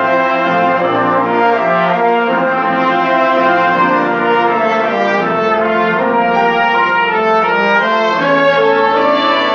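Brass ensemble playing live music, several instruments holding and changing notes together.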